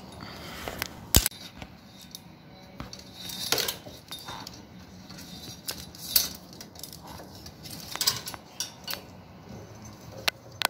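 Hand tools and small metal parts clinking and clattering while wiring is being worked on: an irregular string of sharp clicks and knocks, the loudest about a second in.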